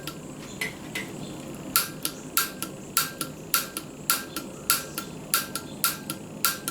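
Piezo igniter on a portable gas camp stove clicking over and over, about once every 0.6 s, with the gas still off. No spark shows at the igniter needle, a sign of a failing igniter.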